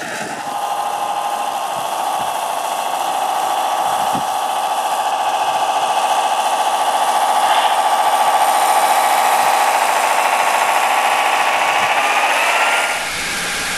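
Electric drive motor and gearbox of an RC scale model Tatra 130 truck whining steadily as it drives its wheels through soft sand. The pitch rises briefly near the end, then the sound cuts off.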